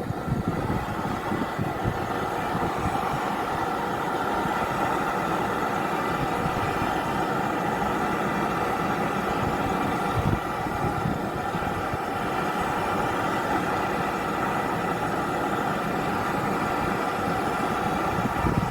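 Air-conditioning unit running steadily: a continuous machine hum over a rough low rumble.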